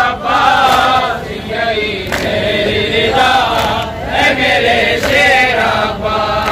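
Men's voices chanting a noha, an Urdu mourning lament, in long drawn-out sliding notes with short breaks between phrases.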